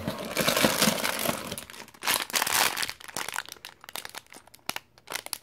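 Crinkling of a clear plastic LEGO parts bag as it is pulled from the box and handled, with small clicks of loose plastic pieces shifting inside it. The crinkling is heaviest at the start and again about two seconds in, then thins to scattered clicks.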